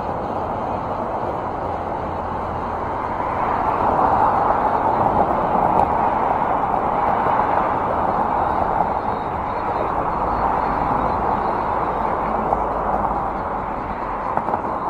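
Road traffic passing through an intersection: a steady wash of car tyre and engine noise that swells about four seconds in and eases off near the end.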